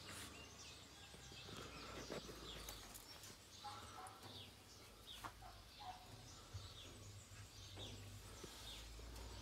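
Faint background of small birds chirping now and then, short falling chirps, over a low steady hum.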